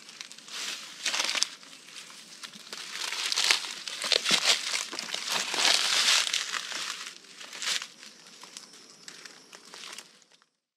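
Dry leaf litter and twigs crackling and crunching underfoot as someone steps slowly over debris, loudest in the middle stretch.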